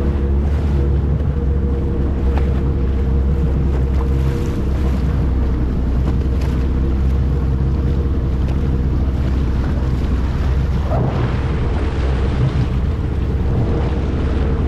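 Jet ski engine running steadily under way, with wind buffeting the microphone.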